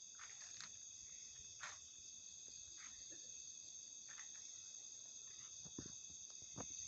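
Faint steady chorus of night crickets, several high trilling tones held without a break, with a few faint scattered ticks and rustles.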